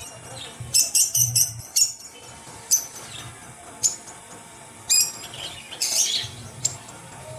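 Battery-operated walking toy elephant: short, high chirping sound effects come about once a second, bunched together near the start and again around six seconds in, over a faint low whir.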